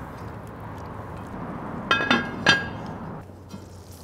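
Lid of an enamelled cast-iron Dutch oven clinking sharply against the pot twice, about half a second apart and ringing briefly, over a steady hiss from the simmering sauce on the gas grill.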